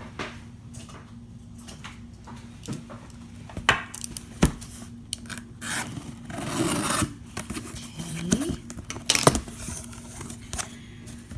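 A cutter slicing and scraping through packing tape and cardboard on a package being opened, with tearing and a few sharp clicks.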